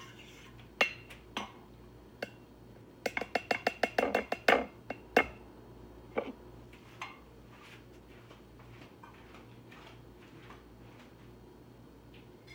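Scattered sharp clicks and light clinks of small hard objects, with a quick run of about a dozen between three and five seconds in, then only faint ticks.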